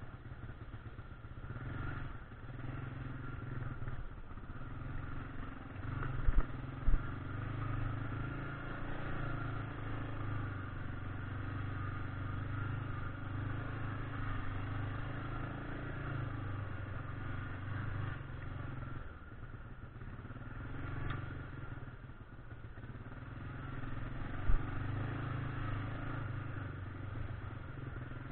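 1999 Yamaha Grizzly 600 ATV's single-cylinder four-stroke engine running at low trail speed, swelling and easing with the throttle. There are a few sharp knocks: two close together about six seconds in and one near the end.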